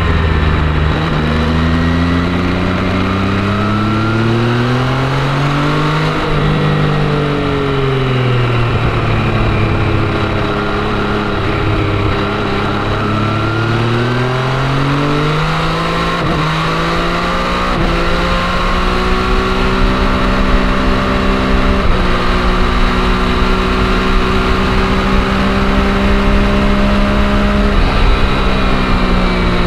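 MV Agusta Brutale 800's three-cylinder engine under way on a downhill run, its revs rising and falling several times with throttle and gear changes. It then holds a steadier, higher note for about ten seconds before easing off near the end.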